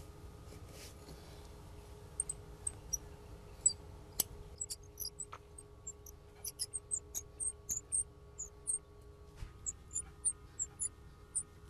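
Short, high-pitched chirps come several a second in irregular runs from about two seconds in, over a faint steady hum.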